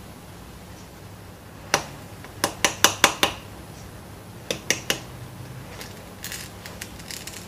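Metal spoon clicking and scraping against the cut end of a raw bone, digging out the marrow: a sharp click, then a quick run of about five clicks, three more a second or so later, and fainter scraping near the end.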